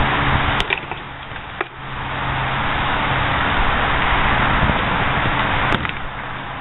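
Steady rushing outdoor background noise with a low hum, broken by a few sharp knocks of plywood practice swords striking shields, about a second in and again near the end.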